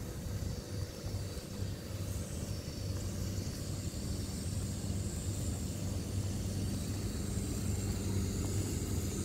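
Steady low engine rumble, a constant hum with no sharp knocks or clear changes.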